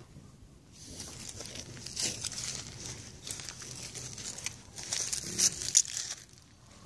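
Close crinkling, rustling rub noise on the phone's microphone as a cow's head and hairy coat brush right up against it, with small crackles and clicks that swell twice and stop about a second before the end.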